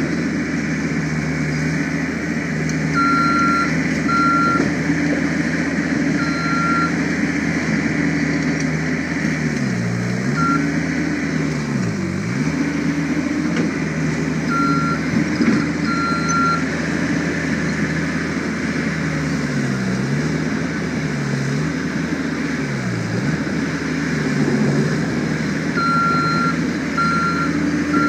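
John Deere 325 skid steer's diesel engine working under load in rock and concrete rubble, its engine speed dipping and recovering four times as it lugs. Its backup alarm beeps in short runs at several points as it reverses, including near the end.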